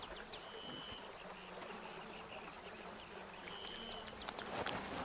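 Flies buzzing steadily around a rotting hippo carcass, with a few short high whistles near the start and again late on.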